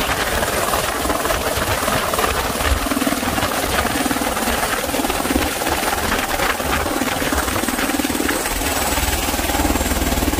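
AS350 A-Star light helicopter landing close by: steady loud turbine and rotor noise with the fast, even beat of the main rotor blades as it settles onto the ground.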